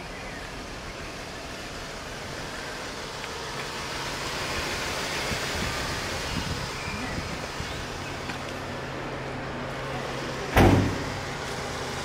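Steady outdoor background noise with a low hum. Near the end comes one loud thump with a short ring-out.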